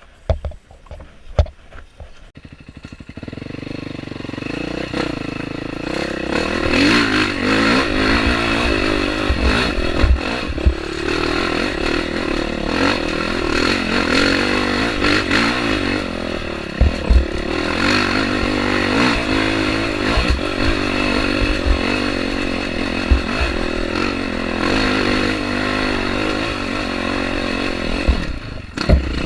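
Off-road dirt bike engine running under constantly changing throttle on a rough trail, with frequent knocks and rattles from the bike. It is quiet with a few knocks for the first couple of seconds, then the engine builds up about three seconds in.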